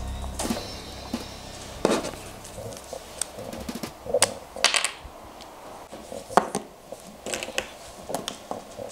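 Small plastic Mathlink cubes clicking as they are handled, snapped together and set down: scattered sharp clicks, with a few close together about four to five seconds in and again near seven and a half seconds.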